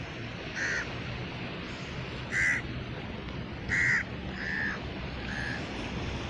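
A bird gives five short, harsh calls, the loudest two in the middle, over a steady rush of wind and surf.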